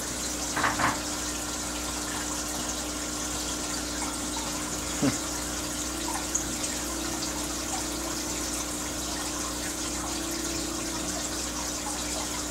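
Aquarium filter running: a steady trickle and splash of water with a low pump hum. A few short knocks come about a second in and again about five seconds in.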